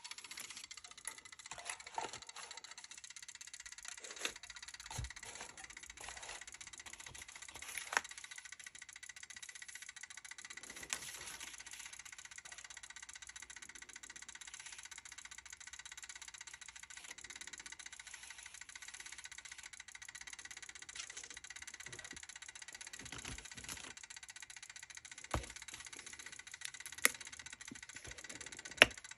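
Vintage Westclox wind-up kitchen timer running, a steady mechanical ticking whirr. A few light knocks and taps come over it, the sharpest near the end.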